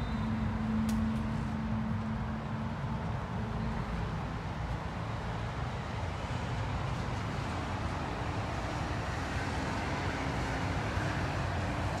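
Steady road traffic noise with a low rumble, and a vehicle engine's low hum for the first three seconds or so before it fades.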